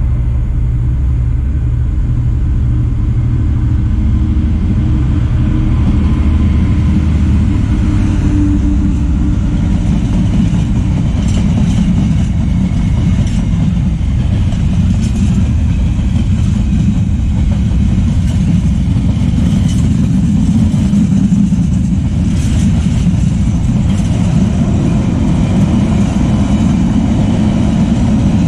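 Freight train of empty container flat wagons rolling past: a steady, loud rumble of wheels on rail, with a few sharp clanks of the wagons in the middle stretch.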